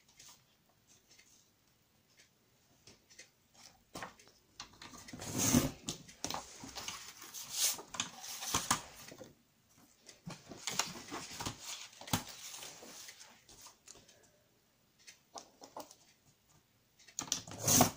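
Paper being trimmed and handled: scattered clicks, rustles and short scraping strokes, with quiet gaps between.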